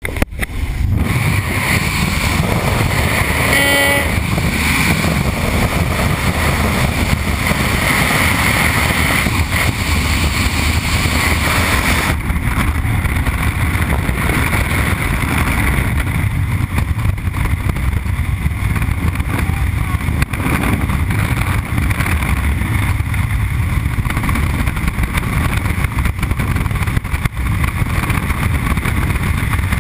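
Loud, steady wind rush on a camera microphone in skydiving freefall. In the first seconds, the aircraft's open door and slipstream.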